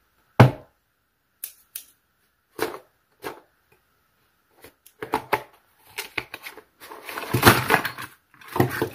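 A cardboard toy box being cut open with scissors and its cardboard packaging handled. There is a knock about half a second in, then scattered snips and clicks. In the second half, the cardboard scrapes and rustles more densely.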